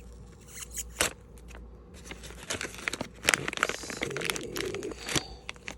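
Small packaging being handled and opened: crinkling, rustling and tearing, with many sharp crackles that grow busier about halfway through.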